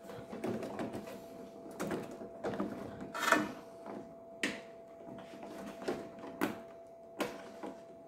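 Irregular light clicks and knocks of plastic parts and wiring being handled inside an opened microwave as the door-switch tray is worked loose, the loudest about three seconds in.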